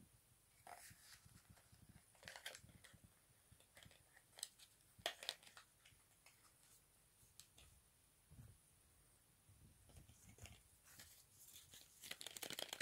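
Faint, scattered clicks and crinkles of small plastic cosmetic packaging being handled, with a quicker cluster near the end.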